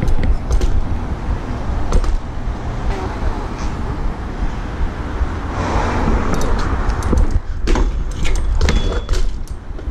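BMX bike rolling over concrete pavement, with wind rumbling on the rider's microphone. Metallic clicks and rattles come from the bike in the last few seconds.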